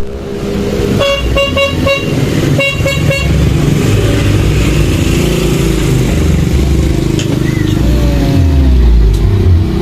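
A 60-watt Whelen electronic siren fitted to a motorcycle gives two quick runs of short, sharp beeps, then a slower tone that rises and falls, over the low rumble of an engine.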